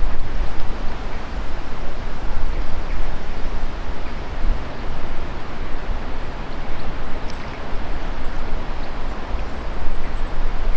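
Wind buffeting the camcorder microphone: a steady rushing hiss with a low rumble that rises and falls in gusts.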